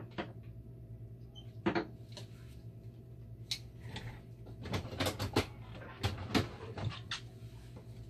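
Irregular clicks, knocks and rattles of pliers and parts being handled inside a dialysis machine, busiest through the middle, over a steady low hum.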